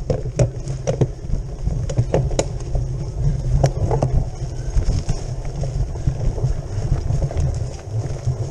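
Bicycle rattling and jolting over a rough dirt trail, heard from a handlebar-mounted camera: a steady low wind rumble on the microphone with sharp knocks from the bumps, most of them in the first couple of seconds and again about four seconds in.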